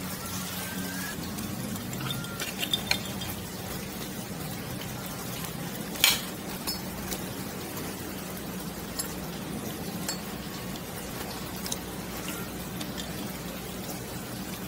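Fork and knife clinking against a ceramic dessert plate, with scattered sharp clinks and one louder clink about six seconds in, over a steady low background hum.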